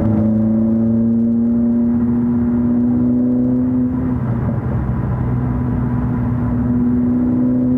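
Mercedes-AMG CLA45 S steering giving off a steady groaning tone over the running engine, the abnormal noise that comes with turning the steering wheel and that a replaced steering gearbox has not cured. The tone stops for about a second and a half midway, then comes back.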